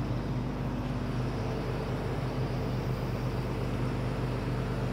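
Caterpillar 320D excavator's C6.4 six-cylinder diesel engine idling, a steady, even hum with no change in speed.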